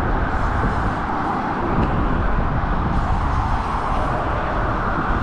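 Steady road traffic noise from cars on the highway bridge alongside, a continuous rumble heaviest in the low end.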